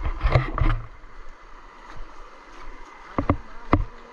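Shallow river water running over rocks, a steady rush, with a few loud dull thumps in the first second and three sharp knocks a little before the end.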